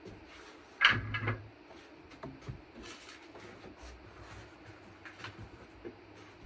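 Workshop handling noises: a clunk about a second in, then scattered light clicks and rustles as parts are moved about on a workbench.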